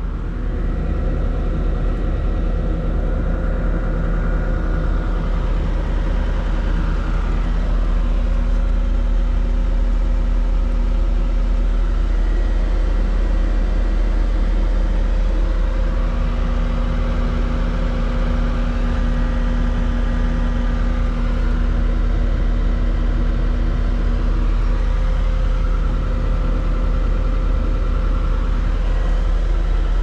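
Cat 239D skid steer's diesel engine running steadily, heard from inside the cab.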